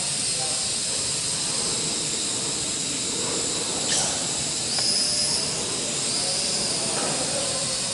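Small RC quadcopter's motors and propellers whirring steadily with a hissy whine that shifts in pitch as it manoeuvres, with a brief sharp tick about four seconds in.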